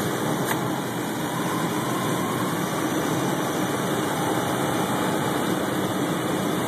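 1997 Chevy Blazer's 4.3 L V6 idling steadily, with one sharp click about half a second in and a faint alternator whine that comes in shortly after and wavers slightly in pitch. The owner says these come when the idle sags as if about to stall under electrical load.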